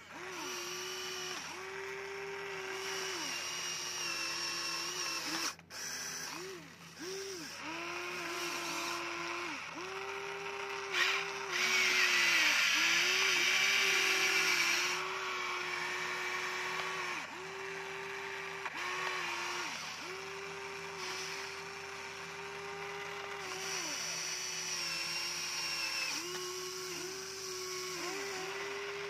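Electric gear motors of a Huina remote-control excavator whining as the boom, arm and bucket move, the pitch dipping and picking up again every second or two as each movement stops and starts. For a few seconds near the middle the sound gets louder and harsher.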